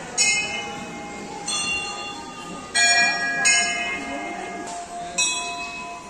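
Hindu temple bells struck five times, the strokes coming at uneven intervals and in differing pitches, each ringing on as it fades, over a low murmur of voices.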